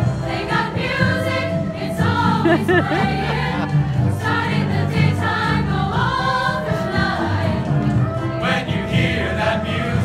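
Large mixed high school choir singing with instrumental accompaniment, the voices moving in phrases over a steady bass line.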